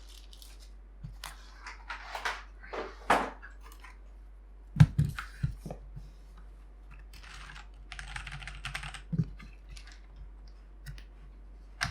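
Mechanical keyboard being handled: scattered irregular clicks and knocks, a heavier thump about five seconds in, and a brief rustle around eight seconds.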